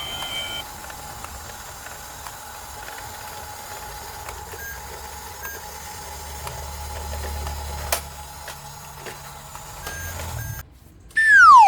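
Electronic beeping with a steady high tone, a low rumble through the middle, then a loud falling whistle sound near the end.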